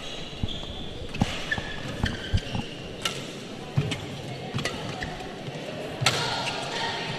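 Badminton rally: rackets striking the shuttlecock with sharp cracks about once a second, and shoes squeaking briefly on the court mat between shots.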